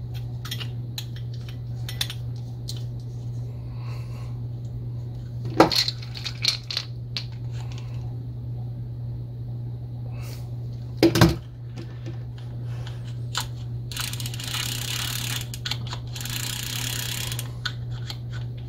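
Small metallic clicks and clinks as a True Temper 327 spincast reel and hand tools are handled, with two sharper knocks, one about a third of the way in and one just past halfway. In the last few seconds the reel's handle is cranked: a steady ratcheting whir of its gears with the light clicking of the anti-reverse, as the pickup pin is tested. A steady low hum sits under it all.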